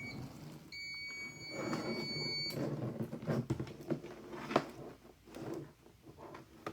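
High-pitched electronic beep from a device just plugged into the mains, held for about two seconds and then cutting off, followed by light clicks and knocks of handling.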